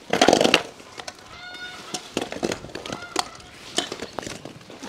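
A long-handled tool scraping and splashing standing rainwater across a muddy yard: one loud wet scrape at the start, then a few fainter scrapes and knocks. Poultry call briefly several times in the background.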